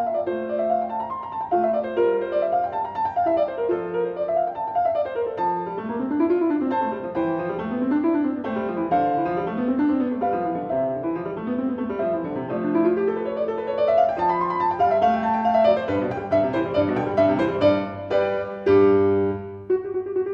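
Background piano music: quick arpeggios rippling up and down over a steady bass line.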